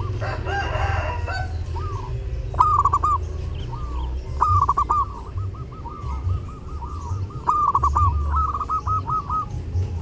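Zebra dove (perkutut) cooing in runs of short, quick arched notes, with louder phrases about two and a half seconds in, around four and a half seconds, and again from about seven and a half to nine seconds. A rooster crows briefly at the start.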